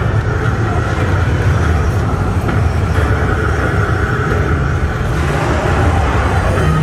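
Dark-ride vehicle moving through the ride, a loud, steady low rumble.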